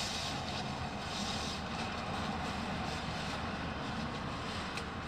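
Steady rumble of traffic circling a roundabout, with the rustle of a synthetic sleeping bag being pulled out and spread on a groundsheet.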